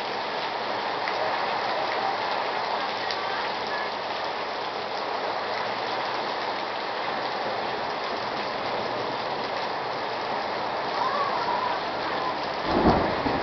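Heavy rain falling steadily in a thunderstorm, an even dense hiss of downpour. A short low rumble comes near the end.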